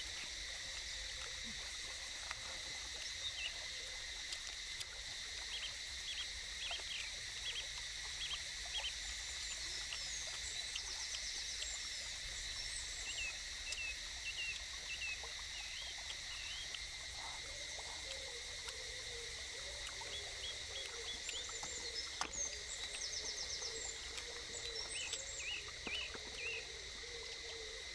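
Forest ambience: a steady high-pitched insect drone with scattered short bird chirps, and a wavering lower call in the second half.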